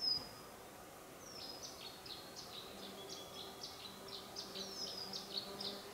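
Small songbirds singing: a loud high whistle slurring downward right at the start, then a long run of quick, high chips and trilled notes. A low steady hum comes in about three seconds in.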